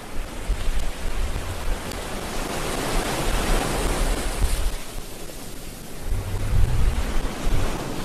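Wind buffeting the microphone in uneven low rumbles, stronger near the end, over a steady rushing hiss that swells in the middle.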